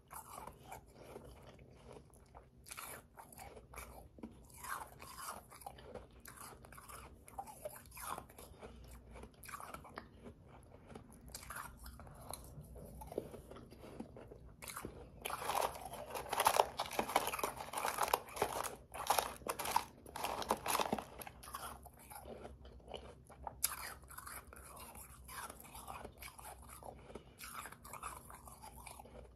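A person biting and chewing powdery, slushy ice in many short crunches. The crunching gets denser and louder from about halfway through for several seconds.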